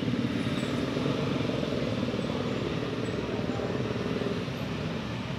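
A motor running steadily: a low drone with a fast, even pulse.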